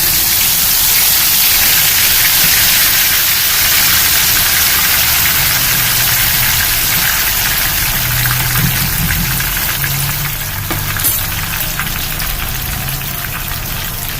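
Soaked chana dal deep-frying in hot oil: a loud, steady sizzle with fine crackling, easing off a little toward the end, as the water left in the dal boils off as foam; the dal is done once the foaming stops. A low hum runs underneath from about five seconds in.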